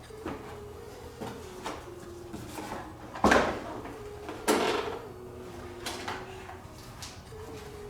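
Clicks and knocks of tools and parts being handled while an ATV is taken apart, with two louder clunks about three and four and a half seconds in. Quiet background music runs underneath.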